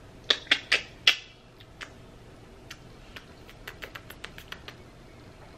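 A run of sharp clicks: four loud ones close together in the first second or so, then a scatter of fainter quick ticks in the middle.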